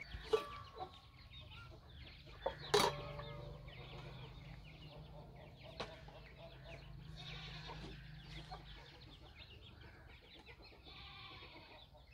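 Chickens clucking faintly in the background, with a few sharp knocks and clatters from the cooking pot being lifted off the clay stove, the loudest about three seconds in.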